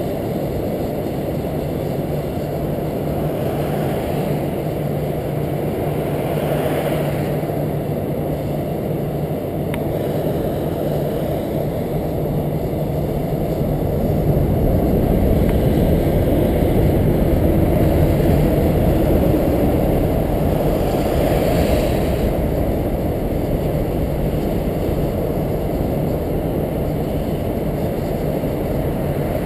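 Motorcycle running at crawling speed, heard from a helmet-mounted camera: a steady low engine hum and rumble that grows louder for several seconds past the middle.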